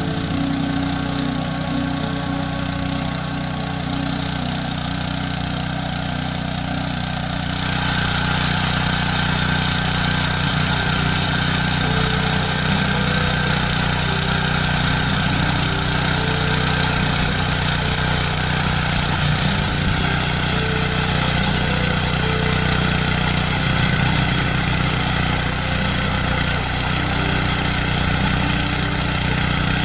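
Honda GX160 single-cylinder four-stroke petrol engine of a Tasco BK 55H mini tiller running steadily; about seven seconds in it gets louder and brighter and holds there.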